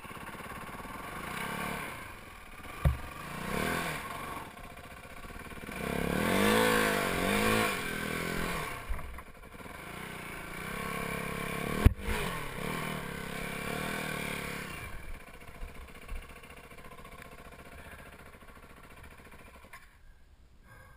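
Yamaha WR450F four-stroke single-cylinder dirt bike engine running at low speed over rough ground, revving up and dropping back several times, loudest about six to eight seconds in. Two sharp knocks about three and twelve seconds in, the second the loudest sound. The engine grows quieter over the last few seconds.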